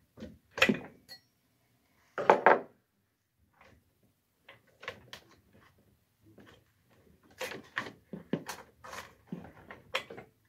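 Irregular knocks, clicks and short rattles of hand work on a Husqvarna 445 chainsaw as its bar and chain are taken off, the loudest two within the first three seconds and a quicker run of them near the end.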